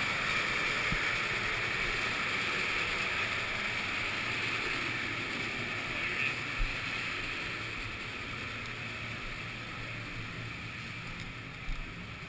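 A steady rushing hiss echoing in a stairwell slowly fades as people climb the stairs, with a few soft thumps of footfalls.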